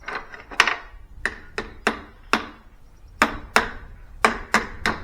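A hammer tapping a short socket extension onto the square drive of a new cordless impact wrench: about eleven sharp strikes at uneven spacing. It needs the hammer because the drive's spring-loaded C-clip holds too tight to push the extension on by hand.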